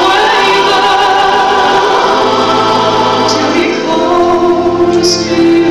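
Church choir singing in harmony, with a woman in front singing into a microphone; long held notes, with lower parts joining about two seconds in.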